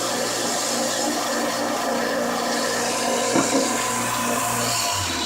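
Electric knife-sharpening machine running steadily with a constant motor hum and grinding hiss, with a brief knock about three and a half seconds in.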